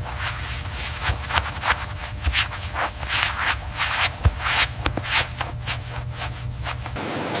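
Irregular rubbing and scraping strokes from hand work at a handbag assembly bench, roughly two a second, over a steady low hum; they stop about seven seconds in.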